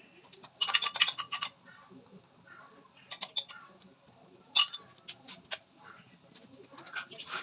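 Utensil clicking against a dish in several short runs of rapid taps, the longest about half a second in.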